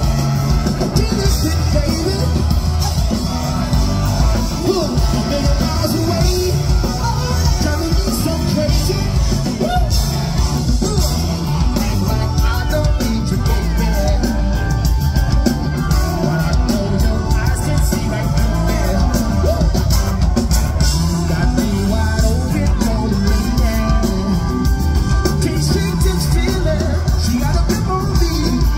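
A live band playing loudly through a PA, with electric guitars, bass and saxophone under singing voices, heard from within the audience.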